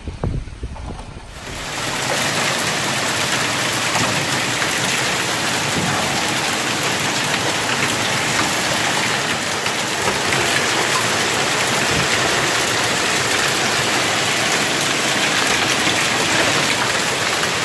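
Wind buffets the microphone at first. After about a second and a half a loud, steady hiss of small hail and heavy rain pelting paving stones takes over.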